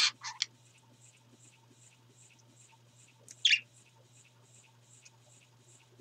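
Pet parakeets chirping: a few short high chirps right at the start, then one sharp chirp falling in pitch about three and a half seconds in.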